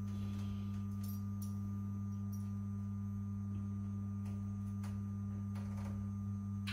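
Steady low electrical mains hum: a constant deep tone with a second tone an octave above it, and a few faint clicks through it.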